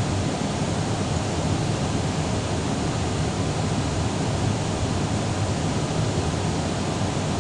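Steady cabin noise inside an Airbus airliner in flight: an even low rumble of engines and airflow with a hiss over it, unchanging throughout.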